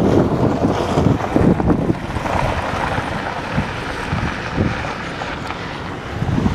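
Wind buffeting the microphone in uneven gusts, heaviest in the first couple of seconds and easing later.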